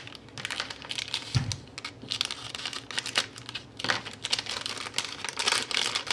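Thin clear plastic sleeve crinkling and crackling in irregular bursts as it is handled and opened to take out a card, with one soft low thump about a second and a half in.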